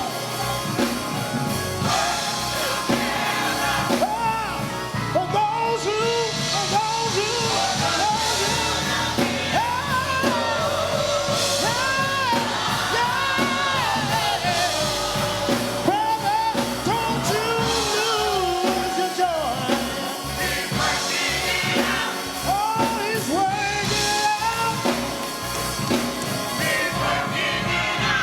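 Gospel song in a church service: sung vocals with vibrato on held notes, backed by a band with drum kit, continuing steadily.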